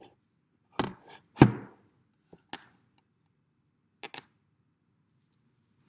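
Several short knocks and thumps of objects being handled and set down on a tabletop, the loudest about a second and a half in.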